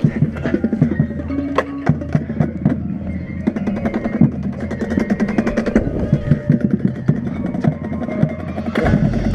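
High school marching band playing, with the percussion to the fore: a busy rhythm of drum hits and sharp wood-block-like clicks over a few held notes. A low rumble comes in near the end.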